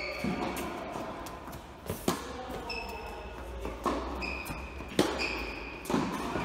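Sharp ball impacts about once a second, with short high-pitched shoe squeaks between them, as players move on a hard court.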